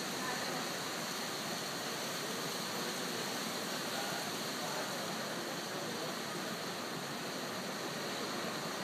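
Steady rushing noise of ocean surf, an even wash with no single wave standing out.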